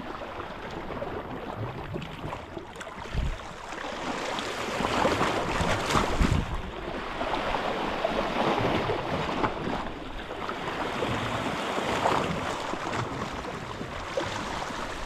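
Sea waves washing and splashing over shoreline rocks, swelling louder a few times, with some wind rumble on the microphone.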